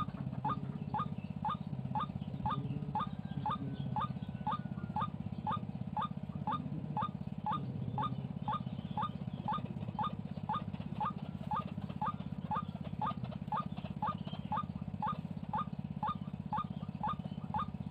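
White-breasted waterhen calls repeated at a very even pace of about two a second, each a short rising note, over a steady low hum.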